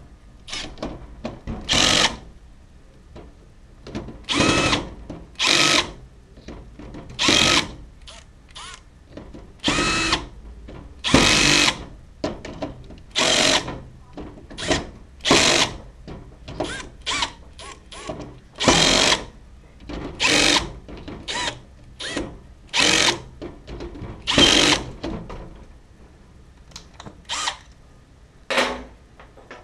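A small power tool, such as a drill or driver, run in many short, irregular bursts of a fraction of a second each, with brief pauses between.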